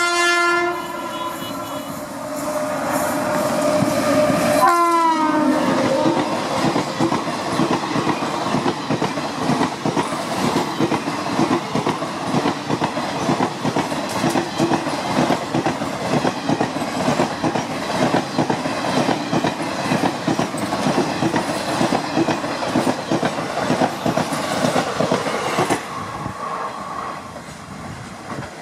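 WAP-7 electric locomotive sounding its horn as it approaches through the station at speed, the horn's pitch dropping sharply as the locomotive passes about five seconds in. The LHB coaches then rush past with rhythmic clickety-clack of wheels over rail joints for about twenty seconds, until the last coach passes and the noise falls off near the end.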